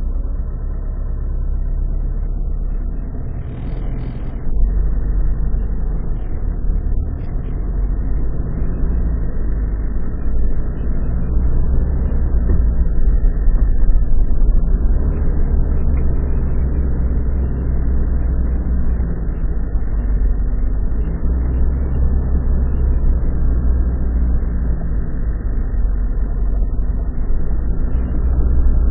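Motor vehicle engine running steadily with a deep, low-pitched sound, getting louder about four seconds in.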